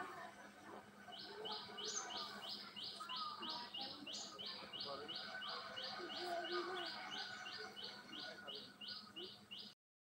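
A bird repeating one short, high chirp about three times a second, over fainter lower chatter; the sound cuts off suddenly near the end.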